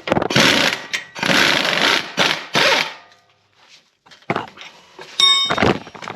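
Impact wrench run in several short bursts of hammering, the longest close to a second, working a lower control arm bolt loose. About five seconds in there is a short metallic ring.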